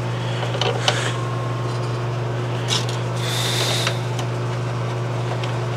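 A steady low hum, with a few light clicks and, about three seconds in, a short scraping hiss of small parts being handled.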